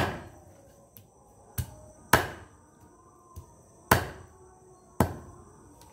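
A blade chopping through raw chicken pieces on a wooden log block: about five sharp chops at uneven intervals.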